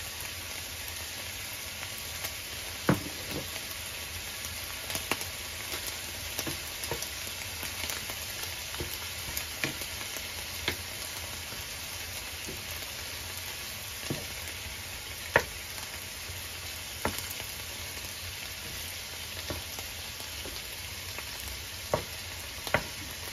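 Tomatoes, onion and beef strips sizzling steadily in a frying pan while a wooden spatula stirs them. The spatula knocks sharply against the pan every second or few, the loudest knock about two-thirds of the way through.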